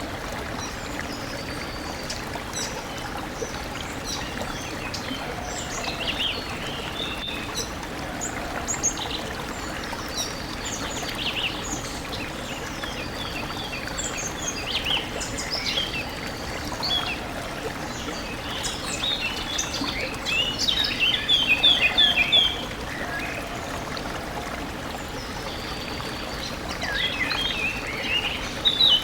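A stream flows steadily while several birds chirp and sing over it. There is a rapid, louder run of chirps about two-thirds of the way in and another near the end.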